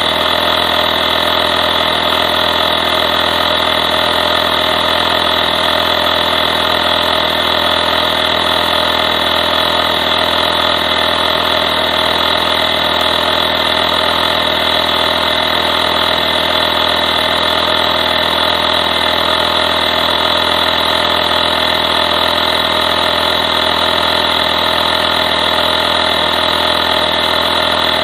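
Compact 12 V portable air compressor running steadily as it pumps up a van tyre, a loud, even mechanical buzz that does not change.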